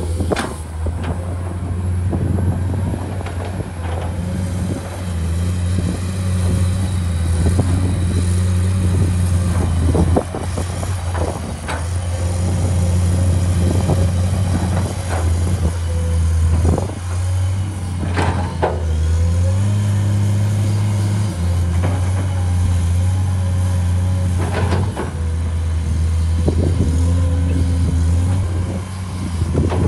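Komatsu PC210 hydraulic excavator's diesel engine running under working load, its pitch stepping up and down as the boom and bucket move. Scattered sharp knocks and clanks sound over it, a dozen or so in all.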